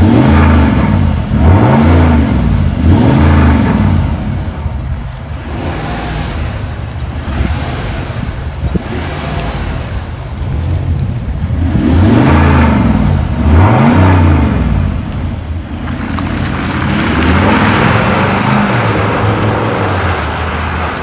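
Range Rover 4.4 V8 diesel revved through a tuned exhaust with its vacuum exhaust valves open. There are three quick throttle blips at the start, two more about twelve seconds in, then a longer rev as the car pulls away.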